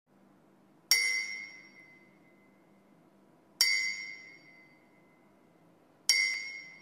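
A high-pitched chime struck three times, about two and a half seconds apart, each strike ringing out clearly and fading away.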